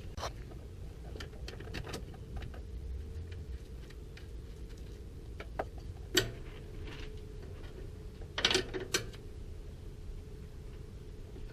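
Scattered metallic clicks and clinks of hand tools and fittings during work on a truck's radiator connections, with a sharp knock about six seconds in and a short clatter near nine seconds. A steady low hum runs underneath.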